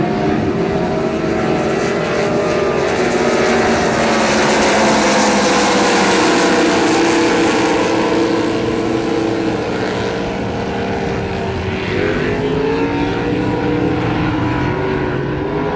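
Several supercharged 6-litre race boat engines running flat out as the boats pass. It is loudest about midway, with the engine notes sliding lower as they go by, and near the end one engine's pitch dips and climbs again.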